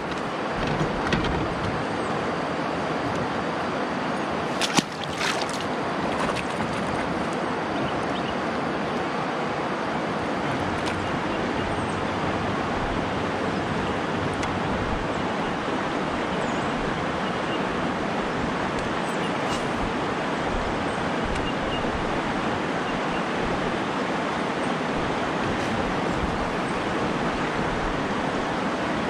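Steady rush of river water running over rocky shoals and riffles, with a single sharp click about five seconds in.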